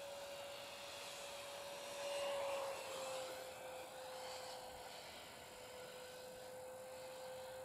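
Electric ducted fan of a Freewing F9F Panther RC jet whining in flight: a steady high tone over a rushing sound. The rush swells to a peak about two seconds in as the jet passes, and the tone drops slightly in pitch just after.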